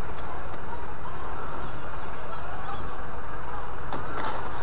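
Wheeled magnetic sweeper being pushed over dry grass: a steady rustling rush, with a few sharp clicks about four seconds in.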